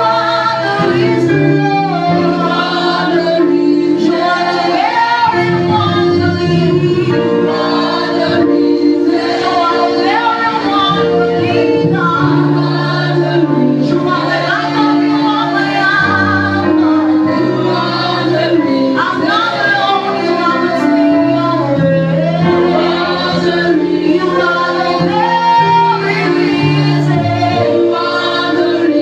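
Church worship team singing a gospel praise song in voices together, over an instrumental backing with sustained bass notes, continuous and loud.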